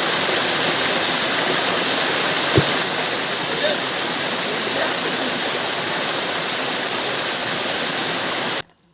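Waterfall rushing in a loud, steady roar of falling water, with a single short knock about two and a half seconds in; the sound cuts off abruptly near the end.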